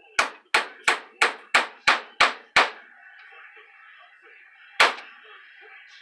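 Ball-peen hammer striking the steel core of a microwave oven transformer to knock the winding free. Eight quick metallic blows come at about three a second, each ringing briefly, then one more about two seconds later.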